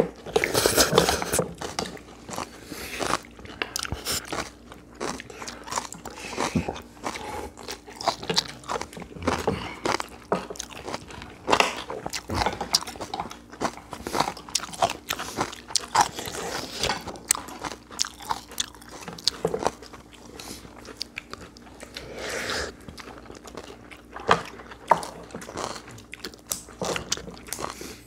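Close-up chewing and crunching of mouthfuls of barley bibimbap mixed with young-radish (yeolmu) kimchi, with crisp, irregular bites all through.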